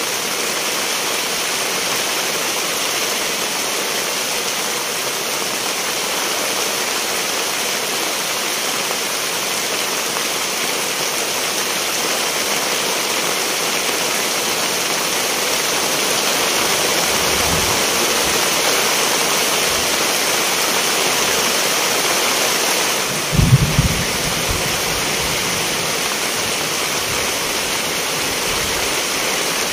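Steady, even rush of heavy water, like a downpour of rain or fast-running water, with a few short dull low thumps about three-quarters of the way in.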